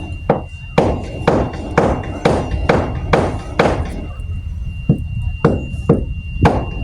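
Hammering at a construction site: sharp knocks about two a second, breaking off after about three and a half seconds and resuming as four spaced strikes. A faint steady high tone and a low rumble run underneath.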